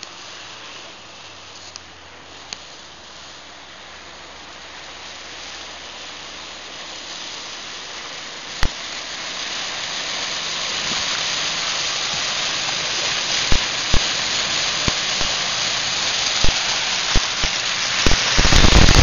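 A car ploughing through a mud pit: a rush of splashing mud and water that grows steadily louder, with several sharp knocks against the body. About a second before the end it jumps suddenly to a loud, harsh noise.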